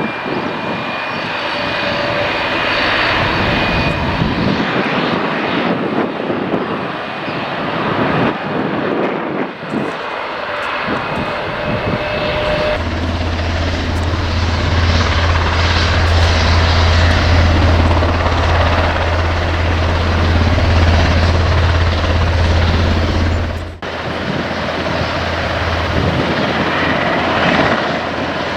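Bombardier Dash 8 Q100 twin turboprops running at high power, with a thin high-pitched whine over a noisy rush. About a third of the way in a deep, steady propeller drone sets in and holds, then drops away suddenly near the end.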